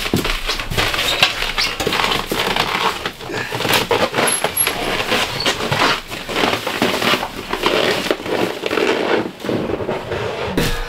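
Winter boots crunching and scuffing on frost and packed snow, with irregular knocks and scrapes as a heavy barrel stove is carried out.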